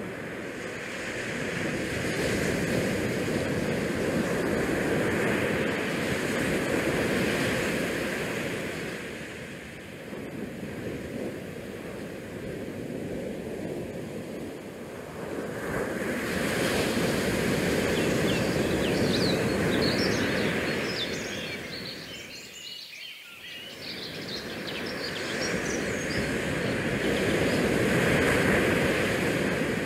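Wind and sea noise rushing in slow swells that rise and fall every several seconds, with a brief cluster of faint high chirps or squeaks about two-thirds of the way in.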